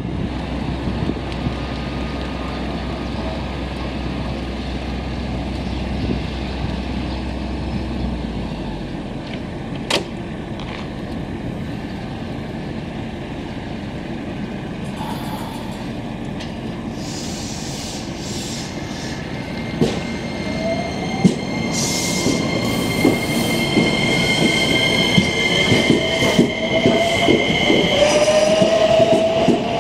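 JR West 321 series electric train standing with a low steady hum, then pulling away in the second half: its traction motors give a rising whine in several pitches, with the clatter of wheels over rail joints.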